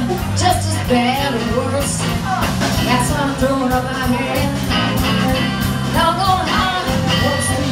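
Live blues band playing: amplified harmonica carrying a bending lead line over electric guitar, bass guitar and drums keeping a steady beat.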